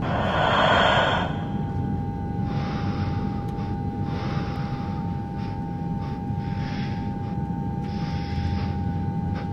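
Ambient soundtrack: a steady held tone over a low rumble, with breath-like noise swells coming about every second and a half. The loudest swell is a gasp-like rush in the first second.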